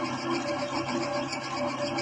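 Milking machine running steadily at the cow's udder: a constant motor hum with a fast, even pulsing.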